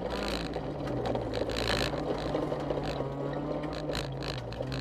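Honda CRX rally car's engine heard from inside the cabin on a gravel stage: the engine note drops right at the start, climbs back and holds steady under load, then dips briefly near the end. Loose gravel clicks and rattles against the underside throughout.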